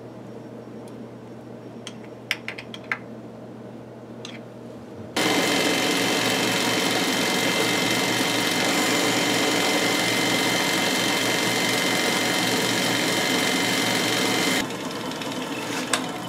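Atlas 618 metal lathe: a faint hum with a few light metallic clicks, then about five seconds in the lathe starts up with a loud steady mechanical running noise and a high whine, which stops abruptly after about nine seconds.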